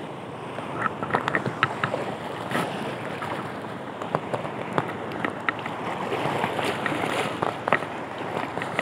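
Sea water washing and splashing around a wading angler in choppy shallows, with wind on the microphone; many short, sharp ticks and splashes sound through it.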